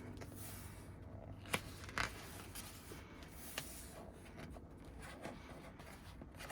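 Faint paper handling: pages of an album photobook being turned, soft rustles with a few light taps and clicks.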